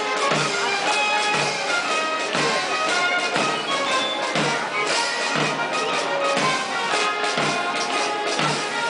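Brass band music with many held notes and a steady low drum beat about once a second.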